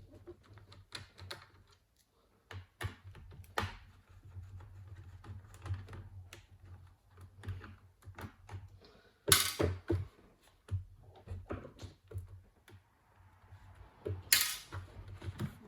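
Light clicks and taps of a laptop's plastic case and parts being handled while the battery is disconnected, with two louder scraping knocks, one about nine seconds in and one near the end.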